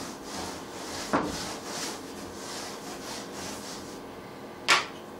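Blackboard being wiped with a board duster: repeated rubbing swishes across the board, with a knock about a second in and a short sharp tap near the end.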